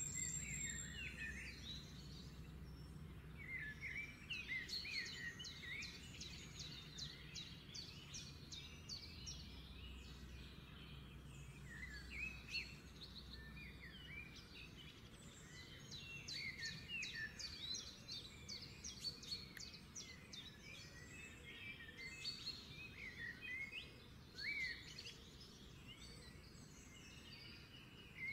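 Small birds chirping and twittering continuously in many short, quick calls and rapid trills. A faint low hum lies under them for about the first half.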